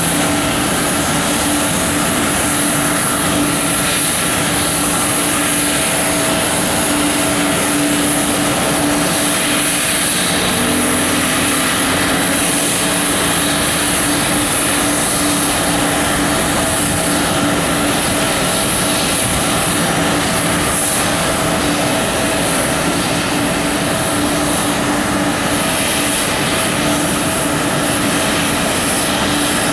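Jet turbine noise from a Boeing 777 during pushback: a steady high whine over a constant low hum, unbroken throughout.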